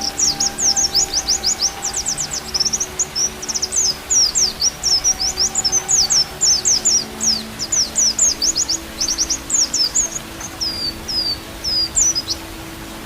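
White-eye (pleci) singing a fast, high twittering song of rapid chirps in close succession, breaking off briefly near the end, over faint low sustained music tones.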